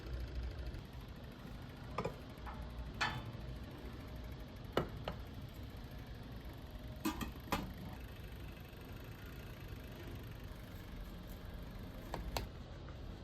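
Scattered light taps and clinks of dishes and utensils while a dessert is served, about half a dozen spread over the stretch, over a low steady background hum.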